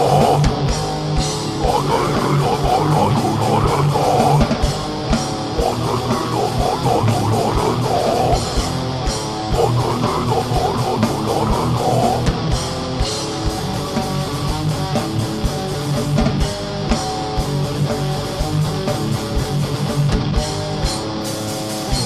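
Heavy metal band playing live: distorted electric guitars and bass over drums with rapid kick-drum beats and cymbals.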